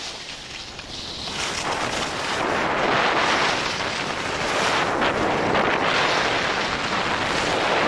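Wind buffeting the microphone of a camera moving fast down a ski slope, mixed with the hiss of sliding over packed snow; it grows louder about a second and a half in and stays steady.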